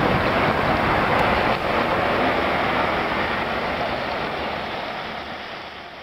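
Water from street works running down the road surface: a steady rushing that fades away over the last few seconds.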